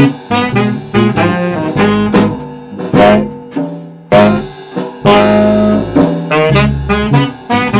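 Live jazz-blues band: a saxophone playing a bluesy lead line of held notes over an electric bass guitar, with a regular beat of short hits underneath.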